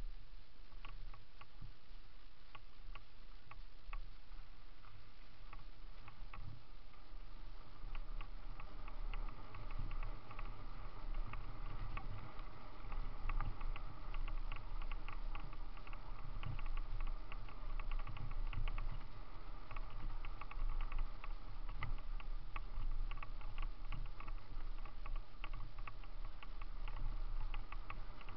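Mountain bike rolling fast down a leaf-covered dirt trail: tyre and trail noise with a low rumble and constant small clicks and rattles from the bike shaking over the ground, getting louder about eight seconds in.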